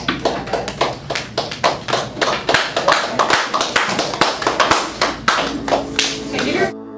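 A small group clapping in a quick, irregular patter of claps, cut off abruptly near the end.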